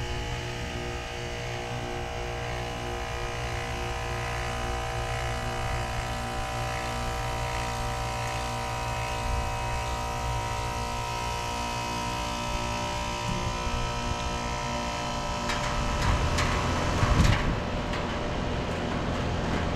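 Carrier Sentry heat pump outdoor unit running in defrost: the compressor's steady hum. A little over three-quarters of the way in, a rushing hiss builds and peaks in a loud whoosh, typical of the reversing valve shifting back as defrost ends.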